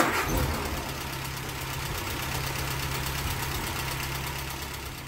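An engine idling steadily, a low hum with a fast, even ticking over it, starting abruptly.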